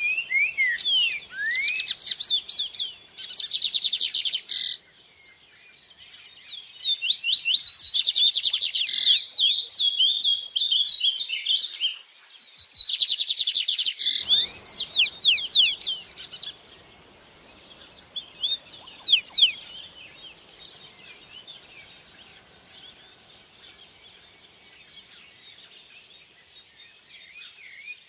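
Songbirds singing: loud bursts of rapid trills and quick whistled notes over the first sixteen seconds or so, one more short burst a few seconds later, then fainter, scattered chirping.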